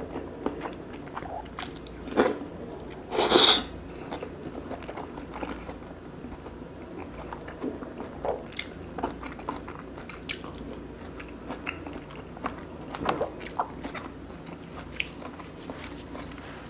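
Close-miked chewing and biting while eating braised kimchi with pork belly and rice: many small wet clicks and smacks, with a louder burst about three seconds in.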